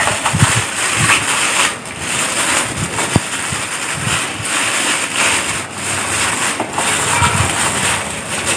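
Plastic packaging rustling and crinkling as it is handled, with scattered soft knocks and a sharp click about three seconds in.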